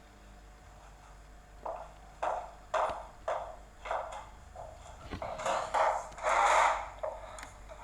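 A series of short knocks, about two a second, followed by a louder, longer spell of clattering handling noise.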